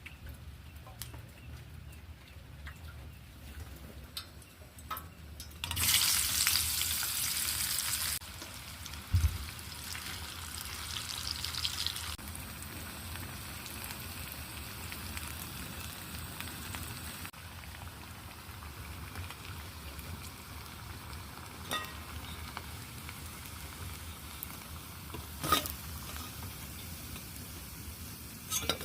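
Food frying in hot oil: a loud burst of sizzling about six seconds in that eases over the next few seconds into a steady sizzle, with a few sharp clicks.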